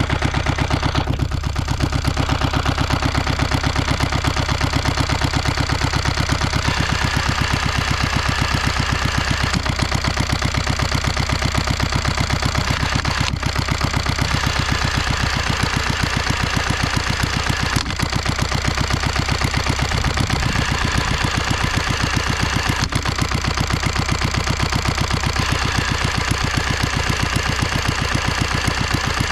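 Lombardini Tipo 520 single-cylinder marine engine running steadily, its firing beating evenly without change in speed, with a few faint clicks over it.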